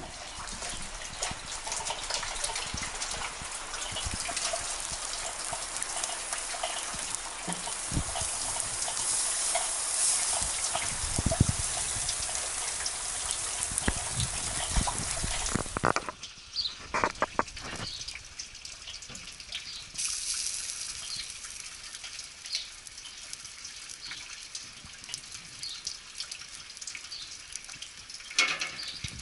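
Steady hiss of rain, with a few dull knocks. About halfway through the hiss drops away abruptly, leaving a quieter background with scattered ticks.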